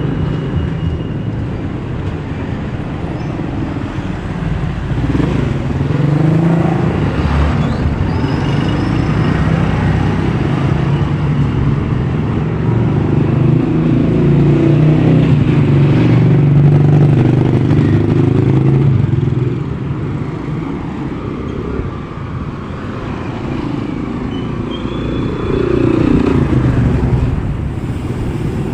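Small motorcycle engines passing on a street over a steady traffic hum. One grows loudest in the middle, its pitch rising and falling as it goes by.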